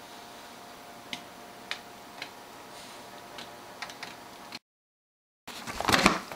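A dog mouthing and nosing a plush toy on a blanket: a few sharp, separate ticks over a faint steady hum. About a second before the end the sound cuts out briefly, then there is a loud rustling thump.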